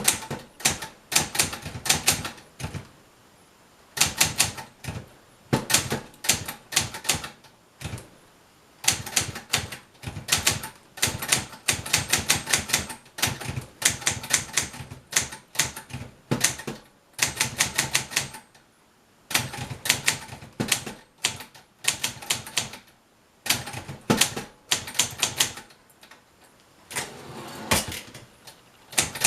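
An all-metal 1970 Brother Opus 901 manual portable typewriter being typed on: runs of rapid key clacks in bursts of a second or two, broken by short pauses.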